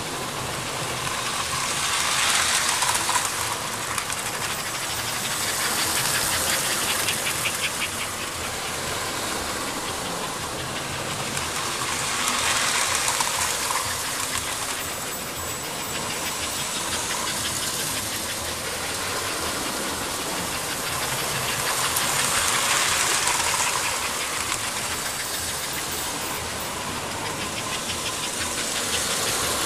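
American Flyer S-scale model train running on the layout's track: a steady mechanical running noise with hiss, swelling louder and fading back several times.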